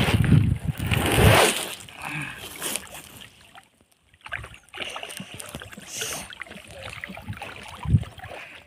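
Wet fishing net being hauled hand over hand out of the river into a small boat: a loud splash and water pouring off the mesh at the start, then softer rustling and dripping of the net, with a low thump near the end.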